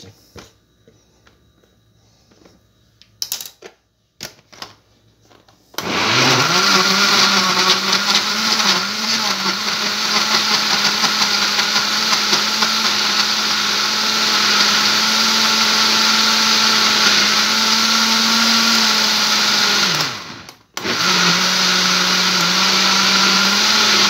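Walita Roma 325 W blender: a few knocks and clicks, then the motor switches on about six seconds in and runs with a steady hum, churning a thick mix of papaya and hard ice cream. About fourteen seconds later it winds down and stops for a moment, then starts again and runs on near the end.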